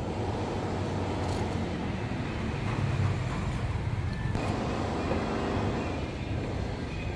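Road traffic: a motor vehicle's low engine rumble with road noise, swelling slightly about three seconds in and easing off again.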